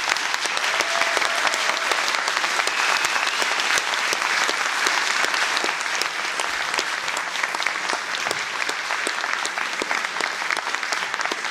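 Audience applauding: many hands clapping at a steady level, easing off slightly toward the end.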